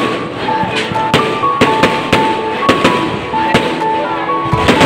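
Fireworks going off in repeated sharp bangs, about two a second, from aerial shells bursting, over background music with a held melody.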